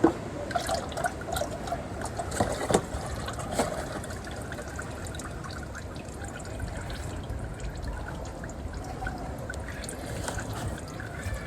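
Engine oil trickling and dripping while the oil filter is off, with several light clicks and knocks of handling in the first four seconds.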